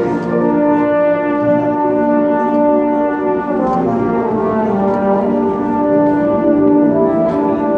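Music on brass instruments playing slow, held notes that step from pitch to pitch.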